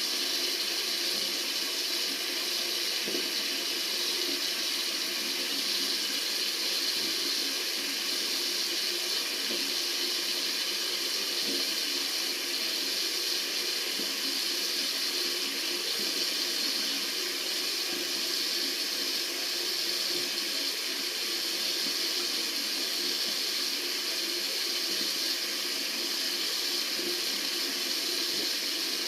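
Tap water running steadily from a faucet, an even hiss with no breaks.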